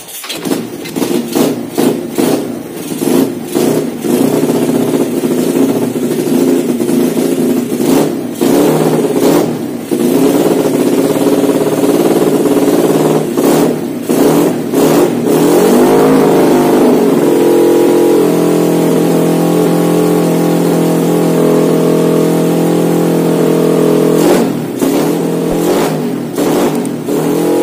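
Yamaha Vega's single-cylinder four-stroke engine in a Honda Win, catching at once and running on a freshly fitted PE26 carburettor that has not been tuned. It idles with repeated quick throttle blips, settles into a steady raised idle about two-thirds of the way in, then takes a few more short revs near the end.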